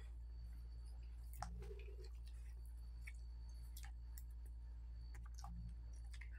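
Close-up eating sounds of people eating with their hands: scattered soft clicks and smacks of chewing and of fingers picking rice off a banana leaf, one sharper click about a second and a half in, over a steady low hum.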